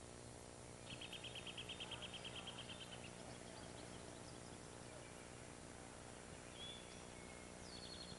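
A songbird's rapid, even trill lasting about two seconds, around ten notes a second, followed by a few short high chirps near the end, over a faint steady background hiss.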